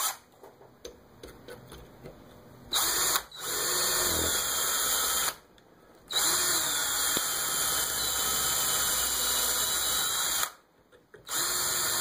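Handheld power drill with a number 29 bit drilling out a small metal part in a vise, running in three spells of a few seconds each with short stops between, after a few light ticks of handling.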